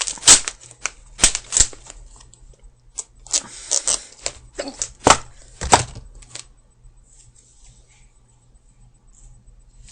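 Clicks, taps and rustling as a soccer cleat is worked off a foot: a run of sharp knocks, a few with a low thud, for about six seconds, then only faint rustling.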